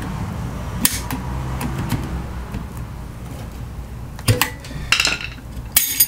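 Hand tool clicking against the metal retaining clip and plastic housing of a washing machine's water pump as the clip is pried off. There are a few sharp clicks, one near the start and three close together near the end, over a low steady background.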